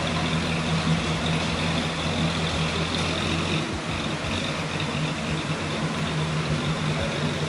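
Engine of a modified car with an aftermarket cam, exhaust and headers idling steadily.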